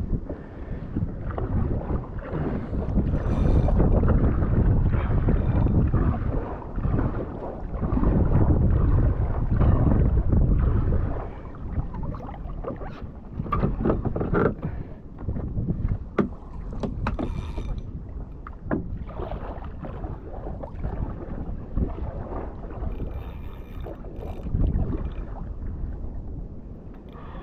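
Wind buffeting the microphone and water slapping against a kayak's hull in choppy sea. The rumble is loudest for the first ten seconds or so, then eases, leaving scattered small splashes and knocks.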